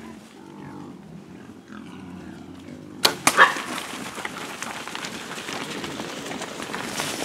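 Feral hogs grunting at a feeder, then about three seconds in a bow shot: two sharp snaps close together as the bow is released and the arrow strikes. Afterwards a rising rustle and crashing as the hogs scatter through dry leaves.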